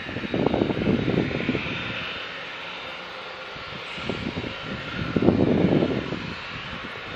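Boeing 737-800's CFM56 jet engines running steadily at taxi power while the airliner turns on the runway, heard from a distance. Gusts of wind buffet the microphone over it, loudest in the first second and a half and again about five seconds in.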